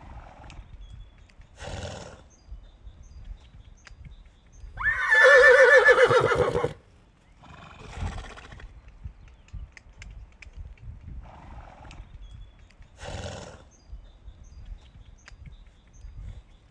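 A horse neighing: one loud whinny of about two seconds, about five seconds in, with a quavering pitch. Short breathy sounds come between at intervals.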